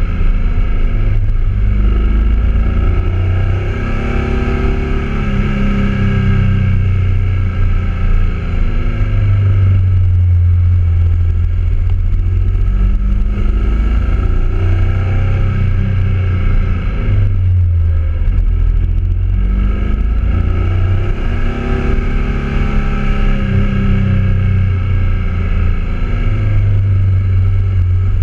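BMW motorcycle engine running at road speed, its revs rising and falling several times over the half-minute as the bike works through a run of bends, under heavy wind rumble on the bike-mounted microphone.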